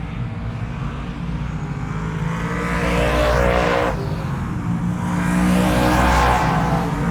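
A car engine passing by twice, each pass building up louder. The first pass cuts off abruptly about four seconds in.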